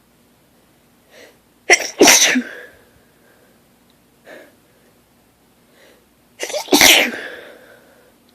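A woman sneezing hard twice, about five seconds apart, each sneeze led by a short catching inhale, part of a sneezing fit.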